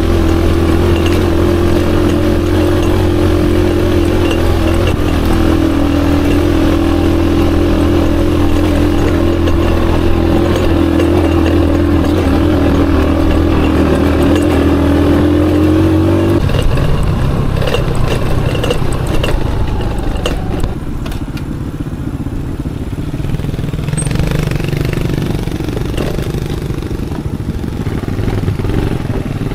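Aveta Ranger Max motorcycle engine running at a steady pitch. A little over halfway through, the steady note cuts off abruptly and gives way to a lower, rougher, uneven engine sound.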